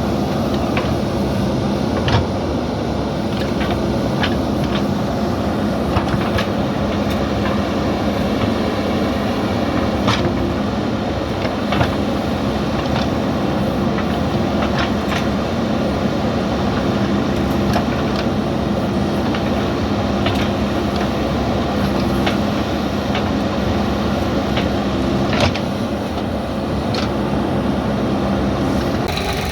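JCB backhoe loader's diesel engine running steadily while it digs soil, with occasional sharp metal clanks from the working machine.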